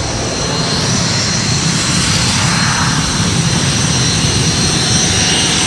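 Aircraft engines running loud and steady: the high whine of the Red Arrows' BAE Hawk jets running at the runway end, mixed with the rumble of a Grumman F8F Bearcat's radial piston engine as it climbs away.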